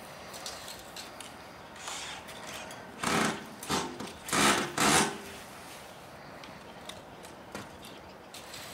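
A small power tool runs in four short bursts about three seconds in, all within about two seconds.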